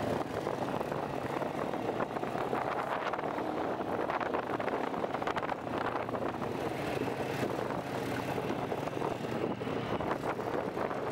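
Quad ATV engine running steadily while riding along a rough gravel dirt track, with rough noise from the tyres and ride over it.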